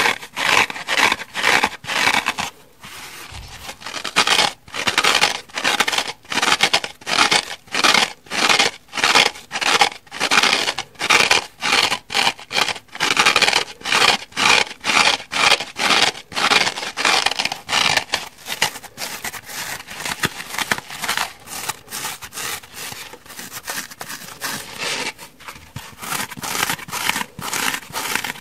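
Fingernails scratching kitchen sponges in quick, regular strokes, about two a second. The scratching is mostly on the rough scouring-pad sides, with a short pause a few seconds in. Near the end it moves to a soft, porous foam sponge.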